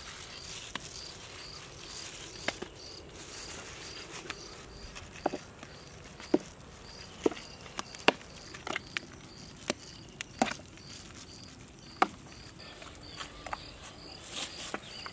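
A cricket chirping steadily, a few short chirps a second, with scattered sharp clicks and taps over it.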